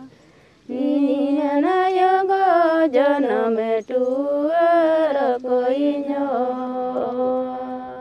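A woman singing unaccompanied, a slow folk melody with long held notes that glide between pitches. It starts just under a second in, with a short break for breath partway through.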